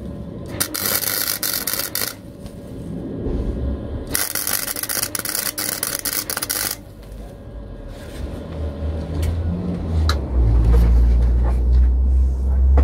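Small gasless flux-core MIG welder (a Draper) laying two short welds on thin car-body steel, each a crackling, spitting burst of a second and a half to two and a half seconds. Spatter flies from the arc on its lowest setting. In the last few seconds a low rumble builds and is the loudest sound.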